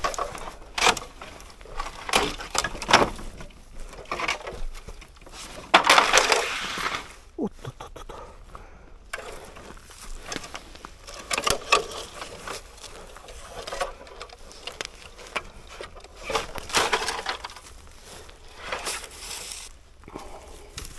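Fallen bamboo and brush being pulled and pushed aside by hand: irregular rustling, scraping and cracking of bamboo and dry leaves, loudest about six seconds in.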